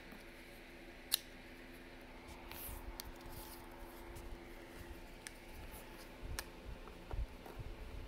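A flat metal blade slitting the tape seals on a cardboard box: faint scraping and small ticks, with one sharp click about a second in.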